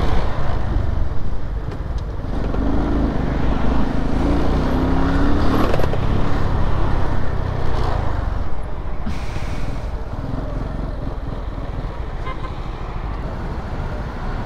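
Motorcycle riding along with heavy wind rumble on the microphone. A few seconds in, its engine note briefly rises and falls.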